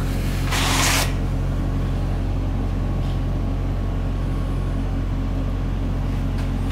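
Steady drone of an ATMOS PDP 35 diesel-driven mobile air compressor running, with a short hiss about half a second in.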